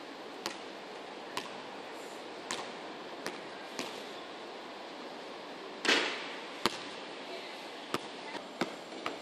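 A basketball bouncing on a hard outdoor court: sharp single bangs at uneven intervals over a steady background hiss, with one louder bang ringing briefly about six seconds in.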